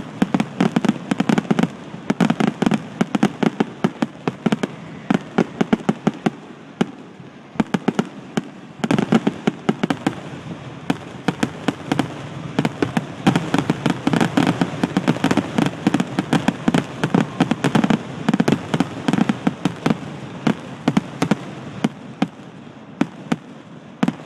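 Fireworks finale: a dense, rapid barrage of aerial shells bursting and crackling, many bangs a second, with a short lull about eight seconds in before it builds again and thins out near the end.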